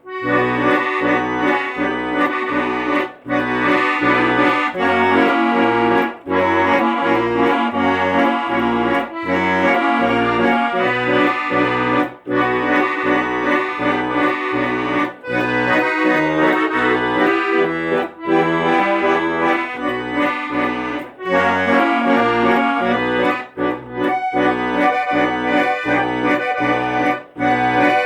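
Accordion playing an instrumental passage: a melody over a steady, evenly paced bass beat.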